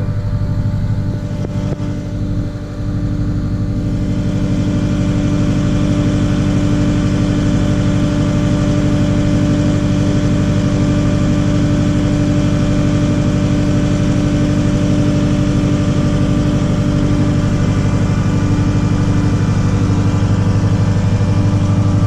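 Front-loader tractor's engine running steadily, heard from inside the cab as the tractor moves slowly. The engine picks up a little about four seconds in and then holds.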